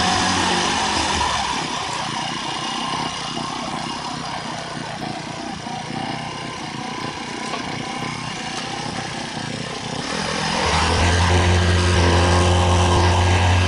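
Engine of heavy road-construction machinery running. A steady low drone fades about a second in and gives way to quieter machine noise, then a loud low drone comes back near the end.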